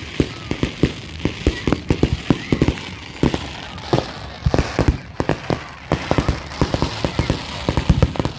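Fireworks display going off: a rapid, irregular string of sharp bangs, several a second, over a steady background hiss.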